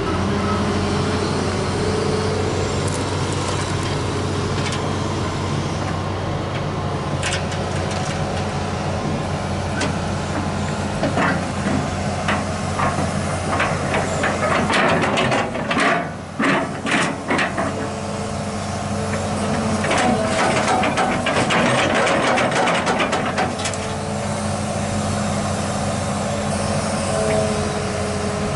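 A diesel engine runs steadily while a Hitachi Zaxis 210 excavator's steel tracks clank and grind on a low-bed trailer's ramps and deck as it drives aboard. The knocking comes in clusters through the middle, heaviest about halfway and again about two thirds in.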